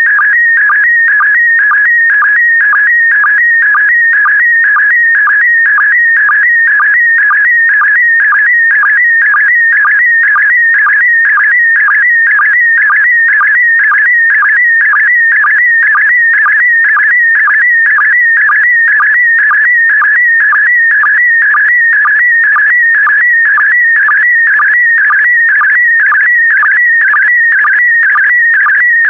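PD120 slow-scan television (SSTV) transmission: a continuous, loud stream of warbling whistle-like audio tones with a regular beat about twice a second. Each beat carries one scan-line group of an image being sent.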